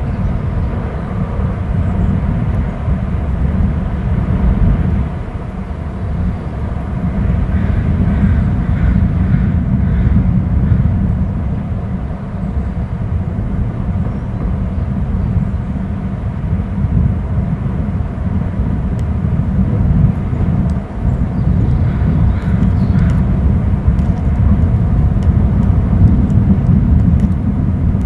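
Wind buffeting an outdoor camera microphone: a loud, low rush that swells and eases unevenly.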